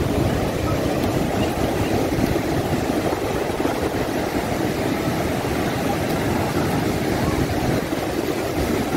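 Breaking ocean surf: a steady, continuous rush of waves on the shore.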